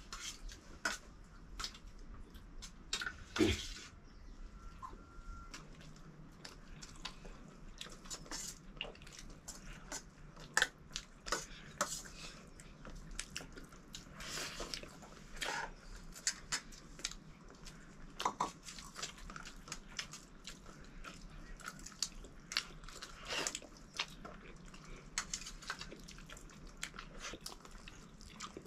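A meal being eaten: irregular small clicks and knocks of dishes, with biting and chewing, scattered through the whole stretch.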